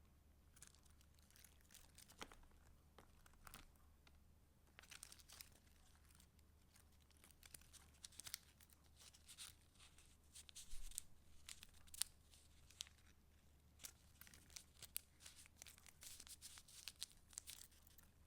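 Soft rustling and crinkling of junk journal paper as pages and paper pieces are handled and turned, with scattered sharp paper flicks. The rustling is sparse at first and grows busier from about five seconds in.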